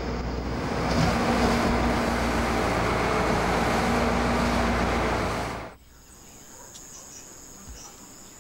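Fishing boat's engine running under way, with a steady hum under wind and water rushing. It cuts off abruptly about two-thirds of the way through, giving way to a much quieter night ambience with the steady high trill of insects.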